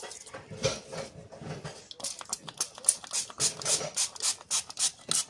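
Hand-held plastic trigger spray bottle misting plant leaves, a rapid run of short hissing sprays, about four a second, starting about two seconds in.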